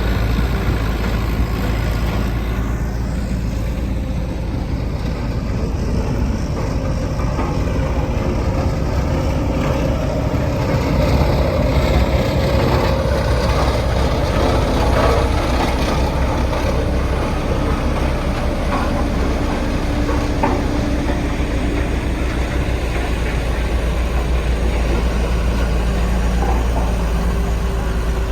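Diesel engines of a tracked skid steer and a roller running steadily under work, with a deep engine drone and a slight rise and fall in pitch and level as the machines move.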